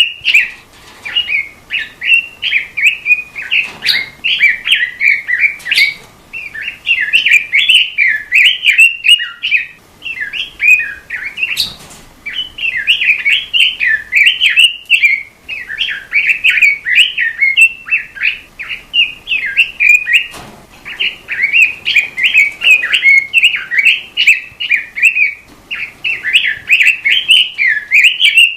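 A robin singing: a long, fast warbling song of rapid, twisting notes, with brief breaks about ten and twenty seconds in.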